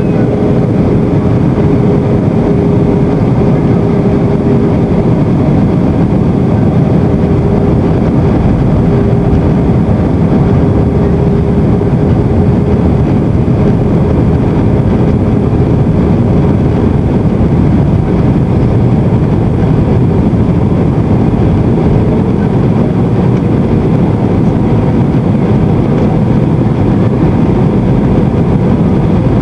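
Airbus A320 cabin noise from an exit-row window seat in flight: the steady roar of the jet engines and rushing air, with a faint steady whine for much of it.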